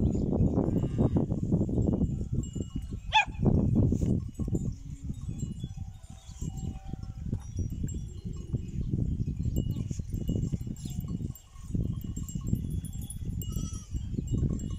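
Bells worn by a herd of grazing cattle clinking now and then, over a gusty low rumble of wind on the microphone.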